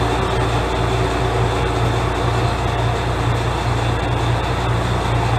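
Diesel railcar's engine idling steadily with a low hum while the train stands at the platform.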